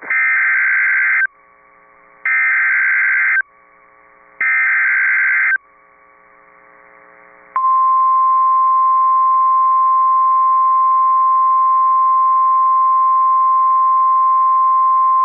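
NOAA Weather Radio emergency alert: three short bursts of SAME digital header data, each about a second long and about a second apart, then the steady 1050 Hz warning alert tone starting about halfway through. The tone signals that a new warning is about to be broadcast.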